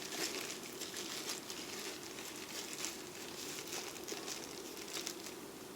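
Small plastic baggie rustling and crinkling with scattered light crackles as it is handled and worked open.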